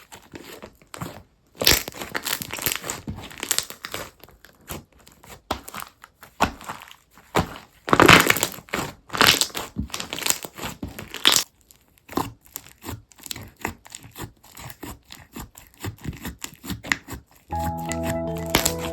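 Crunchy slime being pressed and stretched by hand, giving irregular crackling and crinkling pops. Music starts near the end.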